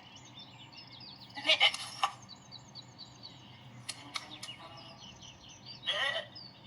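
Cartoon lamb bleating, twice loudly: about a second and a half in and again near the end. Birds chirp faintly throughout, with a few sharp clicks around the four-second mark.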